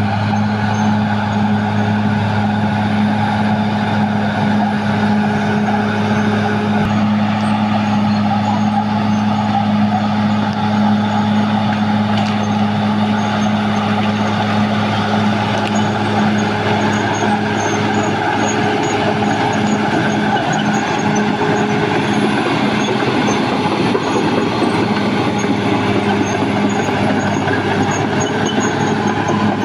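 Caterpillar D6R XL bulldozer's diesel engine running steadily, a loud constant drone that holds one pitch throughout.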